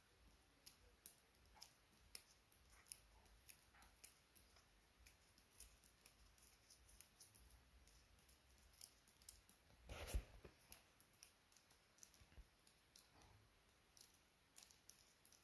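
Near silence: faint room tone with scattered small, irregular clicks and one louder knock about ten seconds in.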